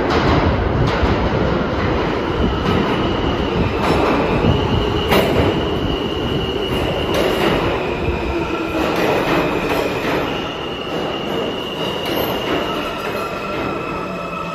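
R160A/R160B subway train pulling into the station and slowing to a stop: wheels rumbling and clacking over rail joints, a high steady squeal through most of it, and a whine falling in pitch as the train slows.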